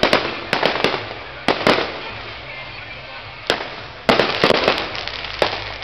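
Aerial fireworks bursting overhead: irregular sharp bangs with crackling tails, some in quick twos and threes, and a dense rapid run of bangs about four seconds in.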